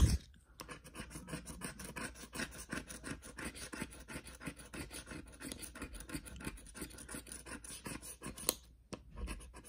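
A plastic scratcher tool scrapes the coating off a scratch-off lottery ticket in a quick, steady run of short strokes, several a second, with a brief pause near the end. The coating is stubborn and hard to scratch off.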